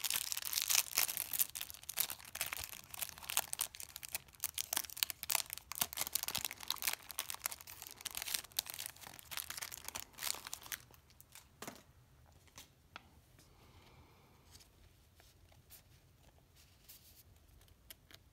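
Thin clear plastic wrapper crinkling and tearing as it is peeled off a trading card, a dense crackle for about eleven seconds. After that it stops, leaving only a few faint taps as the bare card is handled.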